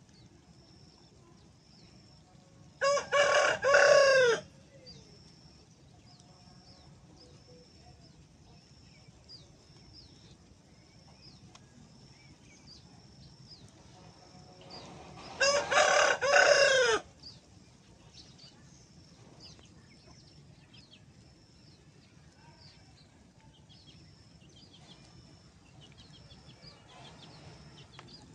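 A rooster crowing twice, each crow about a second and a half long, the first about three seconds in and the second near the middle. A faint high chirp repeats steadily in the background.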